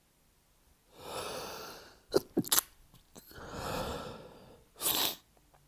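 A man's stifled sneezes during a sneezing fit. A long drawn-in breath about a second in, three quick sharp held-back sneeze bursts, another long inhale, then one louder stifled sneeze near the end.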